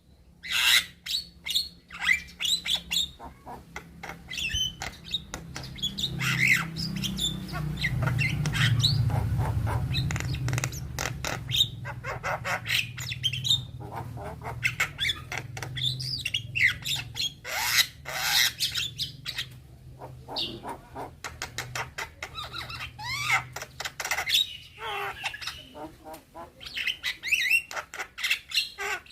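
Young Javan myna singing a varied, continuous run of whistles, chirps and harsh squawks. A low hum swells and fades underneath through the middle.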